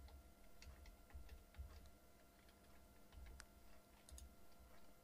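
Near silence: faint room hum with a few scattered, faint clicks of a computer mouse and keyboard as a value is entered in the software.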